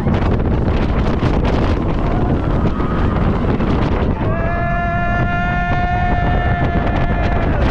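Wind rushing hard over the microphone of a chest-mounted camera riding the Mako steel hyper coaster as the train runs through its course. About four seconds in, a rider lets out one long, high yell lasting some three seconds.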